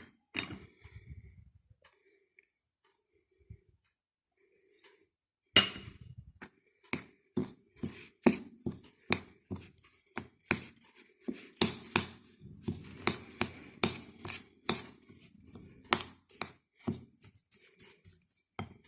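A utensil knocking and clinking against a bowl while stirring a thick oil-bound mix of ground roasted chickpeas and seeds. After about five nearly quiet seconds, sharp clinks come irregularly, about one or two a second.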